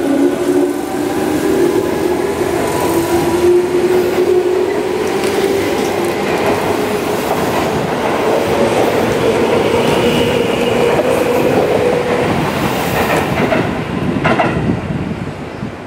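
Tobu 10030 series electric train accelerating, its motor whine rising steadily in pitch over wheel and rail noise. A few wheel clacks come near the end as the sound begins to fade.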